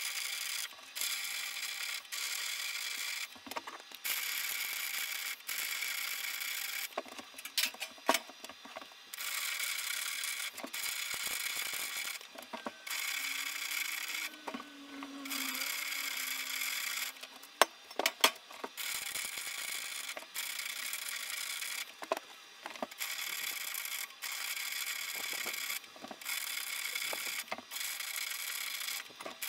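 Arc welding on a steel rectangular-tube frame: a steady hissing crackle of the arc in runs of a few seconds, stopping and starting again between welds. A few sharp metal knocks come near the middle.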